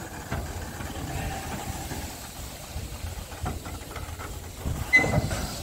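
Steady hiss of steam from the FS 640 steam locomotive, with a short louder sound about five seconds in.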